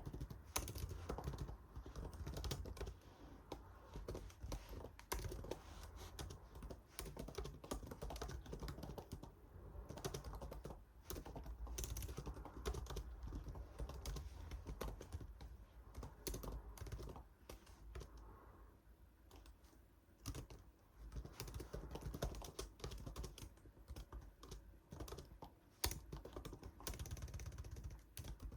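Typing on a computer keyboard: rapid, irregular key clicks with a short lull about two-thirds of the way through, over a low steady hum.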